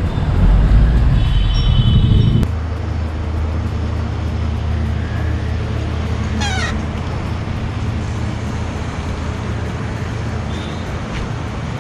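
City road traffic heard from a moving bicycle: a steady rumble of passing motor vehicles and wind on the microphone, heavier for the first two and a half seconds. Brief high tones sound about two seconds in, and a short sliding high tone comes about six seconds in.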